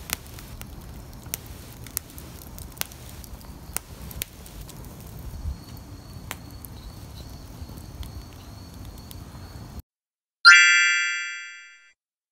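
Wood fire crackling in a metal fire pit, with sharp irregular pops, which cuts off suddenly. About half a second later a single bright chime strikes and fades away.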